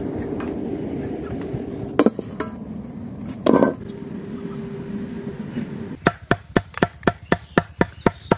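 A steady low rumble with a faint hum, broken by a couple of knocks. About six seconds in, a knife starts chopping onion on a wooden stump block: quick, even strokes, about four a second.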